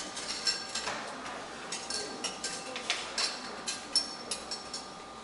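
Kitchen utensils and dishes clinking and knocking during food preparation: an irregular string of sharp clinks, several ringing briefly.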